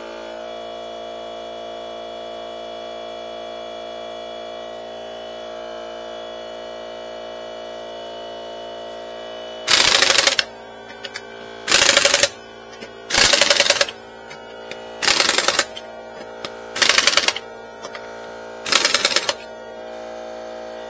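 Pneumatic impact wrench hammering in six short bursts, about one every one and a half to two seconds, tightening a wheel's lug nuts, over a steady hum.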